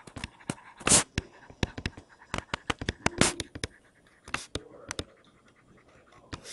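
A stylus scratching and tapping on a writing tablet in quick, short strokes as words are handwritten. The strokes stop for about a second and a half near the end.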